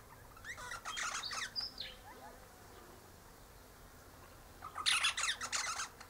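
Eastern rosella chattering: two bursts of quick, squawky calls, each about a second long, a few seconds apart.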